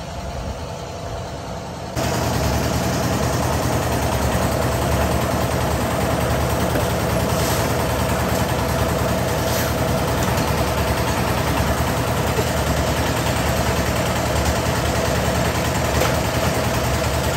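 Engine-driven concrete mixer running steadily, a constant mechanical drone that gets louder about two seconds in.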